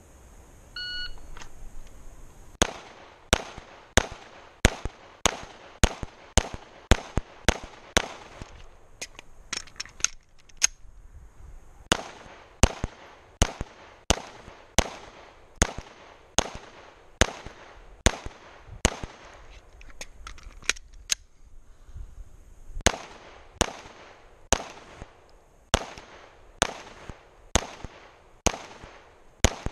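A shot timer beeps once, then a Glock 17 9mm pistol fires three strings of single shots. The second and third strings are paced slower than the first, as the targets get smaller. The two pauses between strings, after about 8 and 21 seconds, hold faint clicks of slide-lock reloads.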